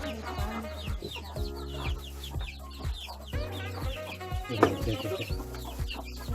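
Chickens clucking, over background music with a steady beat.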